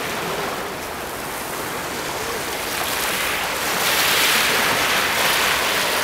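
Sea waves washing and breaking around a rock reef: a steady surf rush that swells louder about four seconds in as a wave surges over the rock.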